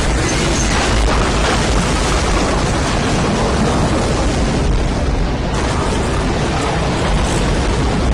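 Tornado sound effect: loud, steady storm-wind noise with a heavy rumble deepest in the bass, unbroken throughout.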